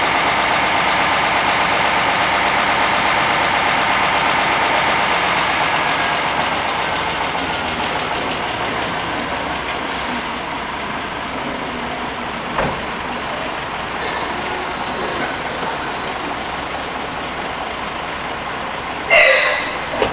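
Diesel engine of an Isuzu bulk silo truck running steadily, growing somewhat quieter after a few seconds. A single knock comes about halfway through, and a brief loud burst comes near the end.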